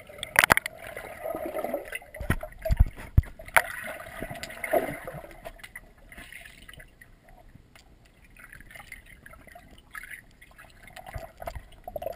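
Underwater sound through a GoPro Hero 2's waterproof housing in a swimming pool: muffled gurgling and bubbling water, with a few dull knocks about two to three seconds in.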